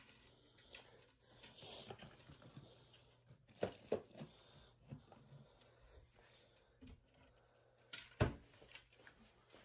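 Handling noise: faint rustling with scattered short knocks and clicks, a few together about three and a half to four seconds in and the loudest about eight seconds in.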